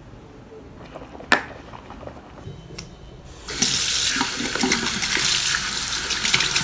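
A single sharp click about a second in. Then, about halfway through, a bathroom tap starts running into a sink, a steady hiss of water as a small plastic mouthwash cap is rinsed under the stream.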